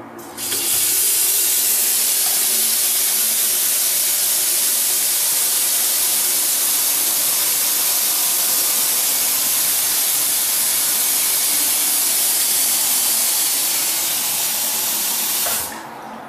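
Loud, steady spraying hiss that switches on suddenly and cuts off just as suddenly about fifteen seconds later.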